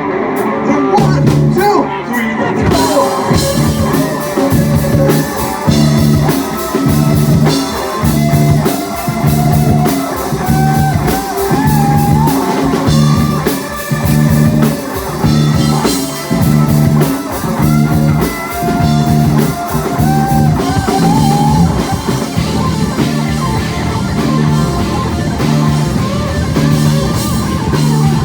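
Rock band playing an electric guitar solo: a lead guitar plays sustained, bending notes over bass and a steady drum beat. Drums and cymbals fill out the sound about two and a half seconds in.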